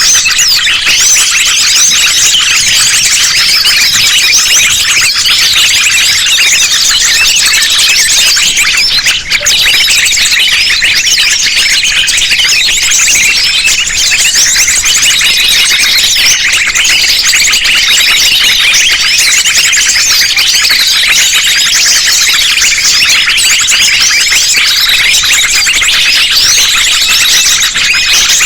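Dense, loud chorus of many small songbirds calling over one another, rapid high-pitched chirps and trills packed together without a break: a mixed lure recording of small birds such as sunbirds.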